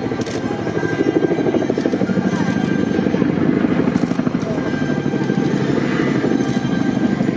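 CH-47J Chinook tandem-rotor transport helicopter running close by: a loud, rapid, steady beating of the rotors with a steady whine over it.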